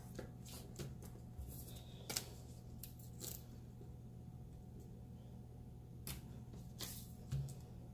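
Faint rustles and light taps of washi tape being unrolled, laid and pressed down onto a paper planner page, a few scattered handling sounds over a steady low hum.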